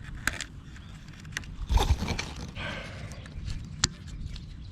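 Scattered clicks and knocks of hand work on a hybrid battery pack, as parts, screws and wiring are handled and fitted. One louder knock comes about two seconds in, and a sharp click a little later.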